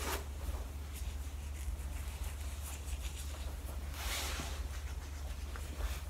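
Comb scratching and rustling through blow-dried hair in short strokes, the loudest stroke about four seconds in, over a steady low hum.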